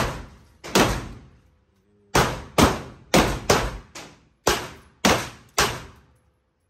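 About nine gunshots fired in an indoor shooting range, in irregular singles and quick pairs, each with a sharp crack and a short echoing tail off the range walls, stopping shortly before the end.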